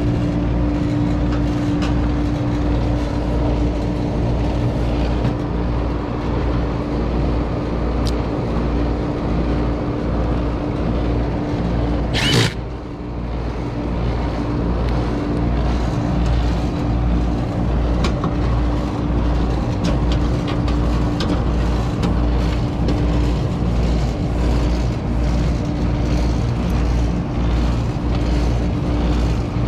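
Air-conditioning condenser running, its compressor and newly fitted outdoor fan motor giving a steady hum with a low pulsing rumble underneath. A brief sharp noise comes about twelve seconds in.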